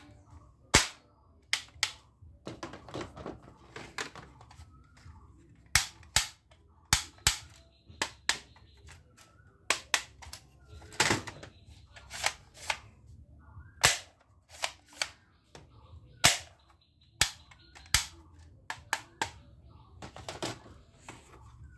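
Hollow plastic toy guns being handled: sharp clicks and clacks at irregular intervals as they are picked up, knocked against each other and set down on the pile, with softer plastic rustling and clattering between.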